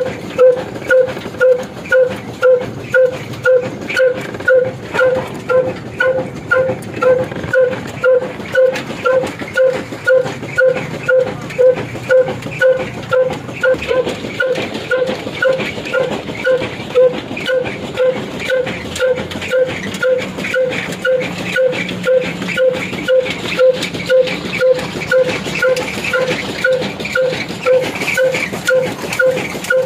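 An old 22 HP black diesel engine and the mustard oil expeller it drives, running steadily together, with a loud regular beat about one and a half times a second.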